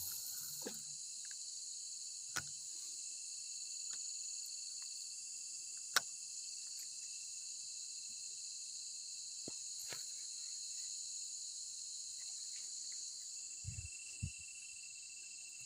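Steady, high-pitched chorus of night insects shrilling without a break. It is broken by a few sharp clicks, the loudest about six seconds in, and two short low thuds near the end.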